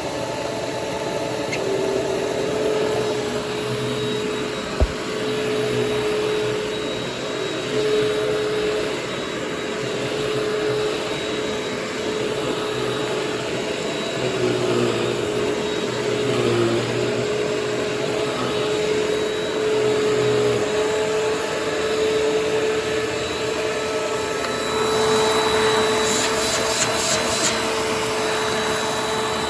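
Hoover Platinum Collection WindTunnel bagless upright vacuum running steadily, a motor whine over rushing air. The pitch dips briefly about halfway through, there is a single sharp click early on, and a burst of rattling clicks comes near the end.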